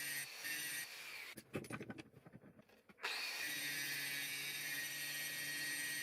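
Electric power tool motor running with a steady whine. About a second and a half in it gives way to a short stretch of clicks and knocks, then it runs again from about three seconds in.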